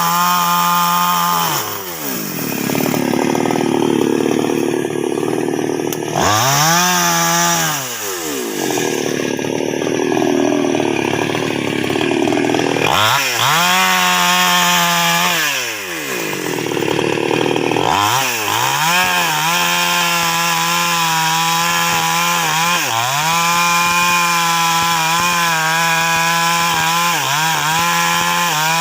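Two-stroke chainsaw cutting sengon wood: the engine rises and falls in pitch several times in the first half as the chain bites into the wood and is eased off, with stretches of cutting noise in between. In the second half it runs at a steady pitch with brief dips.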